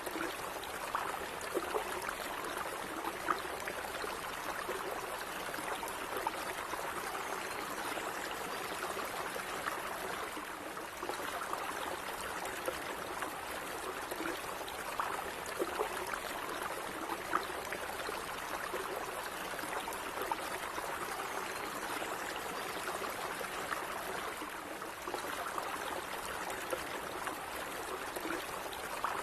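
Shallow stream of running water flowing steadily, with small gurgles and splashes over a continuous babble.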